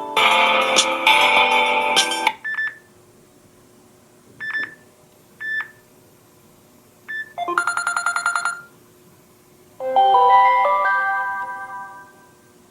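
Samsung Galaxy J6 (2018) built-in phone tones playing in turn. A melodic ringtone ends about two seconds in. Four short separate beeps follow, then a rapid trill of repeated notes lasting about a second, and a short melodic jingle that fades out.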